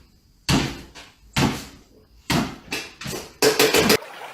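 A series of loud bangs, each fading quickly, about one a second, then a quick run of several bangs near the end.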